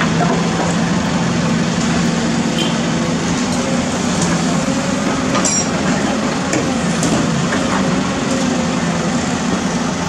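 Cat 320D hydraulic excavator's diesel engine running steadily under load as it digs dirt and broken concrete and swings the bucket over to the dump truck. A few sharp clanks of bucket and rubble sound over the engine, the clearest about halfway through.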